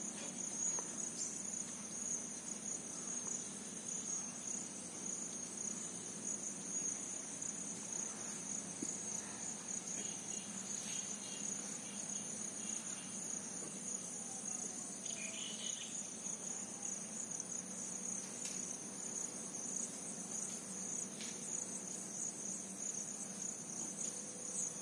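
Outdoor insects, such as crickets, trilling steadily in an unbroken high-pitched drone.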